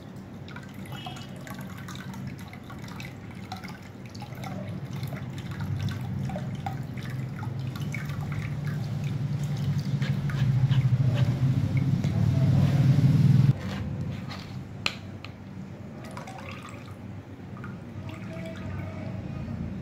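A steel spoon scrapes and presses besan-and-yogurt batter through a plastic mesh sieve while the thinned batter drips and trickles into the pot below. The low rubbing of the spoon in the mesh grows louder and cuts off suddenly about two-thirds of the way in, with a few light clicks after it.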